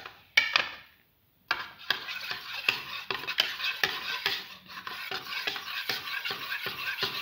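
A spoon stirring yogurt and turmeric powder in a bowl, with a couple of clicks near the start and a short pause about a second in. Then quick, repeated scraping and clinking of the spoon against the bowl.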